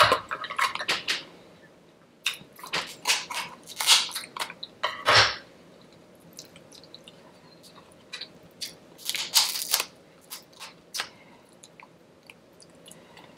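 Close-miked mukbang eating sounds from a seafood boil: wet chewing with crunchy, crackling bites in bursts. The bursts are heaviest in the first five seconds and again around nine to ten seconds in, with only scattered small clicks between.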